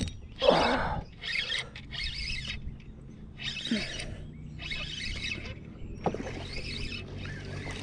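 Fishing reel being cranked in short spells as a small bass is reeled in, a run of brief whirring bursts about once a second.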